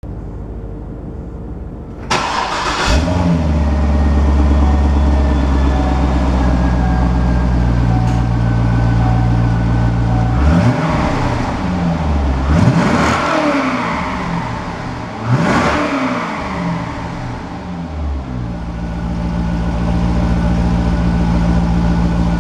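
2005 Chevrolet Corvette's 6.0-litre LS2 V8 comes up loudly about two seconds in and settles to a steady run. It is revved three times, rising and falling, then drops back to a steady idle.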